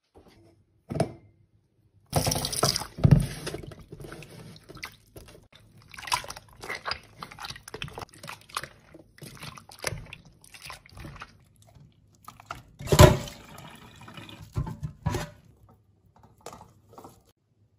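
Water sloshing and dripping as a hand squeezes and kneads flour dough in a bowl of water in a sink, washing the starch out of it. The sloshing comes in uneven squelches and splashes, with one louder splash about thirteen seconds in.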